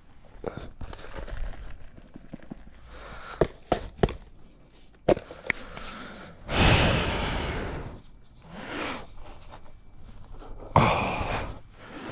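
A person exhaling in two long, breathy sighs, about six and a half and eleven seconds in. Between them come scattered small knocks and rustles as worn hiking footwear is pulled off and dropped on asphalt.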